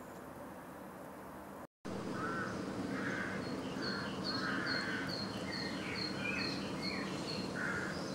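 Outdoor birdsong after a brief cutout: a regular series of short high notes, about two a second, with lower, harsher calls breaking in irregularly.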